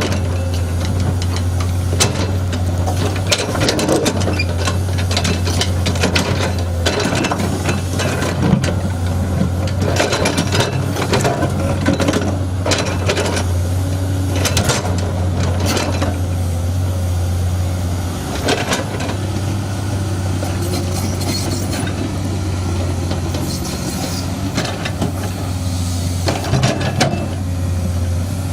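Hydraulic excavator's diesel engine running steadily under load, with frequent irregular clanks and knocks of the steel bucket scraping and striking rock.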